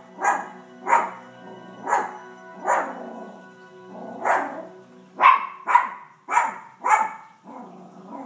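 Yorkshire terrier barking repeatedly, about ten short, sharp barks with brief gaps between them, the last few quicker and closer together. Background music from a television plays underneath.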